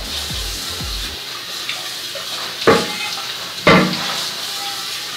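Sorrel liquid pouring and trickling steadily through a kitchen strainer, with two sharp knocks of utensils about a second apart near the middle.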